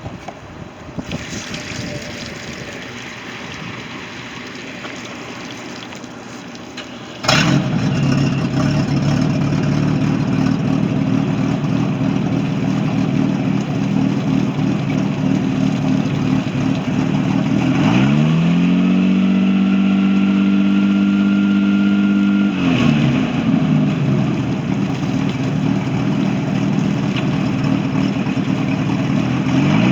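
Volvo Penta 4.3 L V6 marine engine starting about seven seconds in, then running steadily. It is revved up and held for a few seconds, dropped back to idle, then revved again near the end. This is the test run after its circulation pump was replaced.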